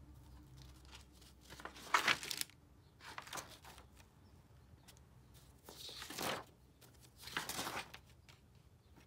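Pages of a spiral-bound paper sketchbook being turned by hand: four rustling swishes of paper, the first the loudest.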